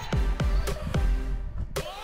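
Background music with a steady beat of deep, falling-pitch bass drum hits under held tones.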